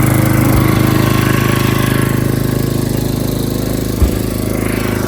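Small engine running steadily at constant speed, powering the water pump, with a brief knock about four seconds in.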